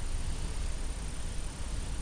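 Steady background noise of a small room: a low rumble under an even hiss, with no distinct event.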